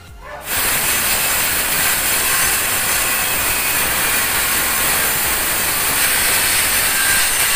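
Circular saw running and cutting through a plywood sheet. It starts about half a second in and holds a steady, loud, hissing cut.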